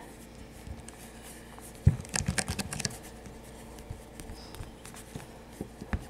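Hands handling and smoothing a polymer clay figure close to the microphone: a soft thump about two seconds in, then a flurry of light scratching and clicking, then scattered small ticks.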